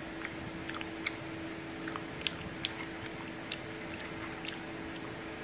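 Faint, scattered clicks and crunches from a hand picking crisp fried besan pakodas out of a steel bowl and eating them, over a steady low hum.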